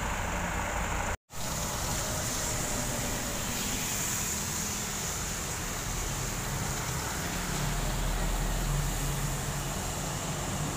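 Road traffic on a wet road: motorcycles and heavy trucks passing, engines running with a steady hiss of tyres, the low engine drone growing stronger in the second half as a truck climbs closer. The sound cuts out completely for a moment about a second in.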